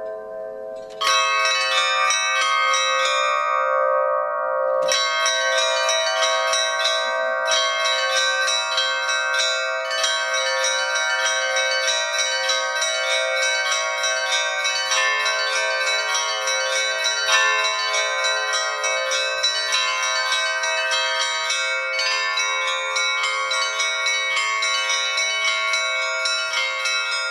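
Russian Orthodox bell ringing (zvon) on a set of church bells: a fast run of strikes on the small high bells over the long ringing of larger bells, starting loudly about a second in. About halfway through, a lower bell joins the ringing.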